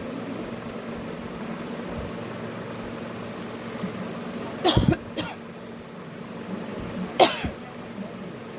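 A woman coughing: a quick double cough about halfway through and a single cough a couple of seconds later, over a steady background hum.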